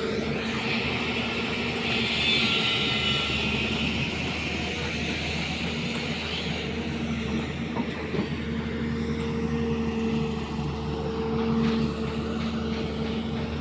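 JCB excavator's diesel engine running steadily, with a constant low hum and a brief louder, brighter stretch about two seconds in.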